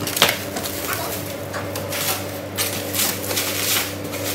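Clear plastic stretch wrap crinkling and rustling in irregular bursts as it is cut and pulled off a cardboard box, with a sharp crackle about a quarter second in.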